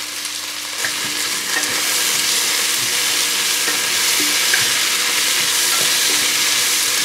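Diced vegetables, onions and tomato paste sizzling in hot fat in a roasting pan as the tomato paste is roasted with them. The sizzle gets louder about a second in as they are stirred with a spatula, with a few light scrapes and knocks.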